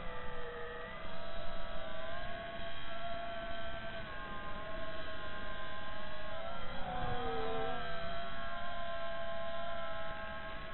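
FPV racing quadcopter's brushless motors and propellers whining through the onboard camera's microphone, the pitch shifting with the throttle. About six to seven seconds in, the pitch drops and then climbs back.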